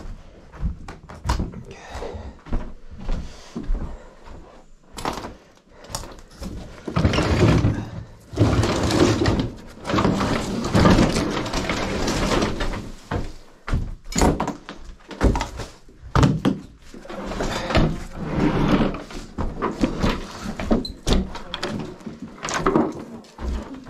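Household junk and furniture being handled and thrown out: repeated knocks, thuds and bangs with stretches of scraping and rummaging.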